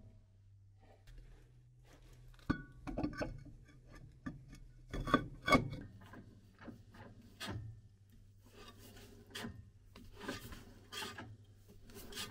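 Irregular knocks, clinks and scraping of hand tools and metal parts being handled during work on Land Rover rear drum brakes, loudest in two clusters about two and a half and five seconds in, over a faint steady hum.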